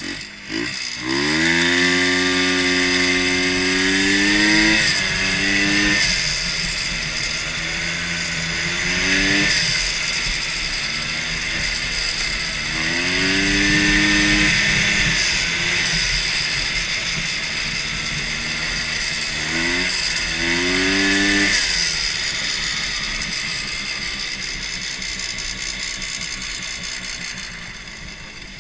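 A 250cc Rotax snowmobile engine in a custom racing lawn mower starts up about a second in and revs up and back down several times, with a high whine riding over the engine note. It settles lower and quieter near the end.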